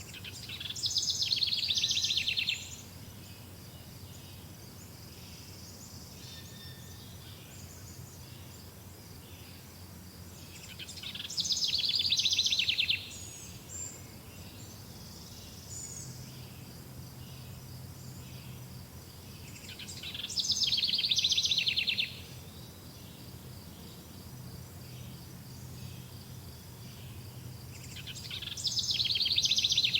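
A songbird singing a loud, fast-trilled song of about two seconds, four times roughly every nine seconds, each song swelling in loudness and cutting off sharply. Between songs, fainter bird chirps and a steady high insect drone.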